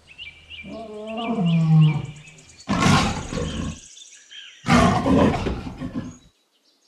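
Lioness roaring: one drawn-out pitched call, then two harsh, noisy roars, cutting off suddenly near the end.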